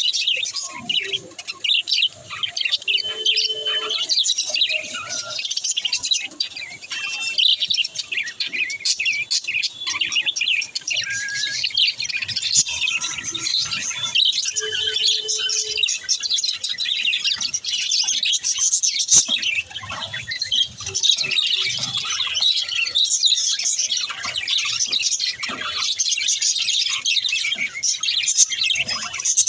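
A group of pet budgerigars chirping and chattering continuously, a dense mix of overlapping high chirps and warbles.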